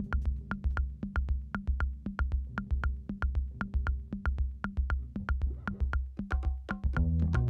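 Electronic background music with a steady beat: regular clicks about three times a second over a pulsing bass. The low end drops out for a moment near the end before a fuller passage comes in.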